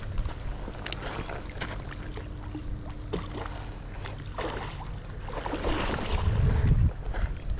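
Wind buffeting the microphone over moving water, with scattered small clicks. A stronger gust swells about six seconds in.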